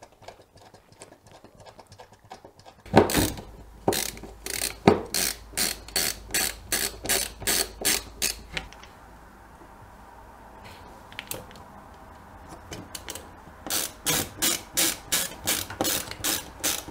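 A hand screwdriver driving a screw into a plywood panel, clicking evenly about two or three times a second. The clicks come in two runs, starting about three seconds in and again near the end, with a pause between them.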